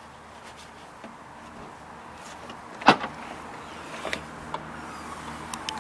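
A single sharp knock about halfway through, then a few lighter clicks and taps, over a faint steady background hum.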